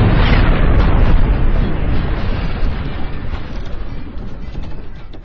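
Explosion sound effect: a loud, deep rumbling blast that slowly dies away over several seconds.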